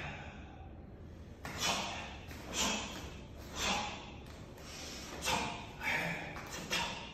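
Sharp, hissing exhalations forced out through the nose and mouth by a karate practitioner, about six of them spaced roughly a second apart, each timed with a strike or kick.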